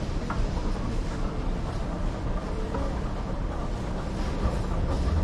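Busy shop ambience: a steady low rumble with a few light clicks and clatters over it.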